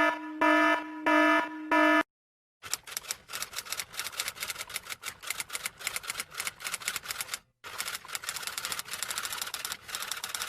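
Three short buzzy beeps, then after a brief gap a long run of rapid, irregular key clacking like typing on a typewriter, with one short break partway through.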